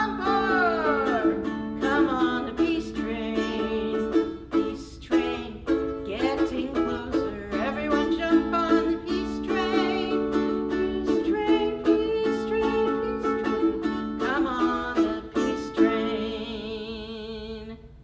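Ukulele strummed while a woman sings. The song ends on a long held note with vibrato over the last chord, fading out near the end.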